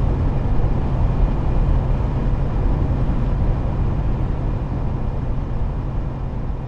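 Steady engine drone and road noise inside a semi-truck cab while driving, mostly a low rumble with no distinct events.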